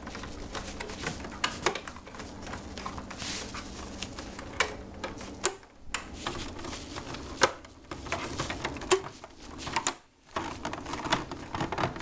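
Irregular clicks, taps and knocks of the plastic housing of a Posiflex Jiva POS terminal being handled, with its cover being fitted back on.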